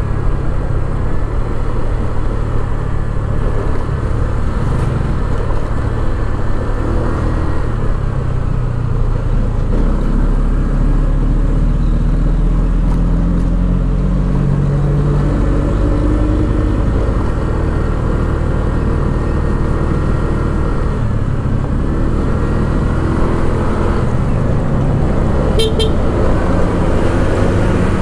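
Motor scooter running steadily while being ridden over a rough concrete road, its engine note shifting slightly a couple of times, with a heavy rumble of wind and road noise at the handlebar microphone.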